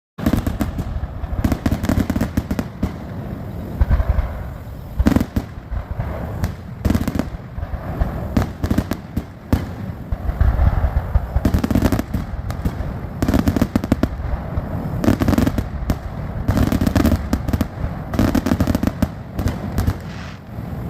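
Fireworks going off in quick succession: a continuous barrage of booms and crackling reports, with many sharp bangs close together.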